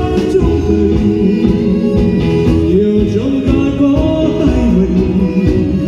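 A Vietnamese song: held, gliding sung notes over a steady instrumental backing.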